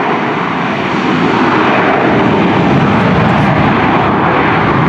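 Boeing 737-700 BBJ's twin CFM56-7 turbofans at takeoff power during the takeoff roll: a loud, steady jet roar.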